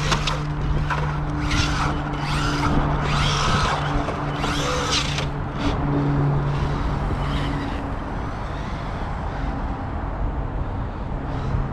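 Traxxas Maxx RC monster truck with an HPI Scream 1950 kV brushless motor on a Mamba Max ESC, driven in short throttle bursts in snow. There are about five sharp bursts of motor whine and spinning tyres in the first five seconds, then weaker ones, over a steady low hum.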